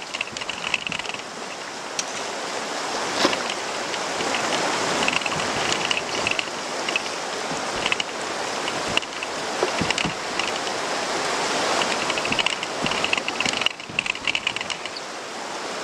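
Whitewater of a shallow, rocky river rapid rushing and splashing around a small boat, with scattered sharp knocks and an intermittent high-pitched squeaking.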